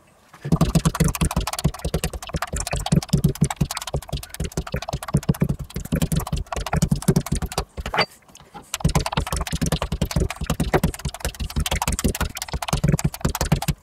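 A spiked meat mallet repeatedly pounding a fillet on a wooden cutting board to tenderise and flatten it, with rapid, even blows of about six a second. The blows pause for about a second near the middle, then resume.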